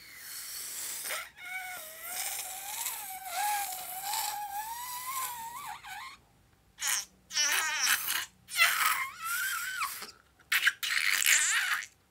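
Air and liquid forced out through the stretched rubber neck of a squeezed balloon: a wavering squeal with a hiss that slowly rises in pitch over about four seconds. After a brief pause come several shorter squeals and sputtering spurts.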